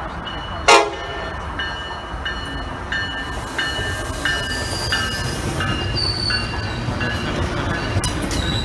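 Tri-Rail push-pull commuter train arriving, cab car leading: a short horn blast about a second in, then a bell ringing steadily over the growing rumble of the train. High brake squeal starts about halfway and holds near the end as it slows alongside.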